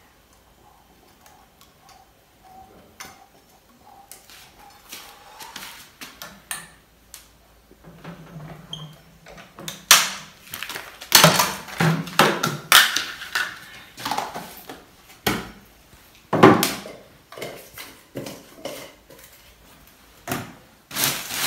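Kitchen handling sounds: a few faint clicks at first, then a run of knocks and clatter as a metal sandwich maker and dishes are handled and set down. The loudest knocks come about ten seconds in and again about sixteen seconds in.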